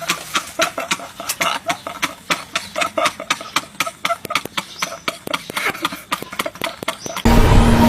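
A sleeping person's strange noises: a fast, uneven run of clicks and short squeaky blips, several a second. A music jingle cuts in near the end.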